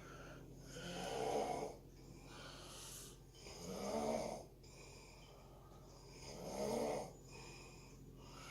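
Snoring: three loud, slow snores about a second long each, one roughly every two and a half to three seconds, with quieter breaths between them.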